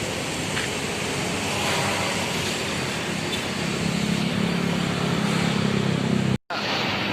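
Steady vehicle and traffic noise with a low engine hum that grows stronger about two-thirds of the way through, broken off for a split second near the end.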